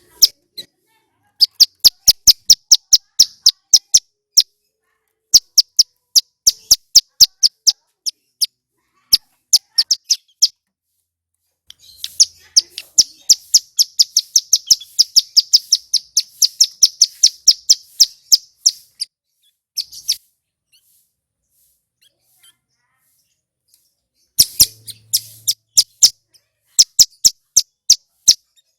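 Ciblek gunung, a prinia, singing: bursts of sharp, high, rapidly repeated notes, several a second. Near the middle it runs into one long, fast trill of several seconds, with short silent gaps between the bursts.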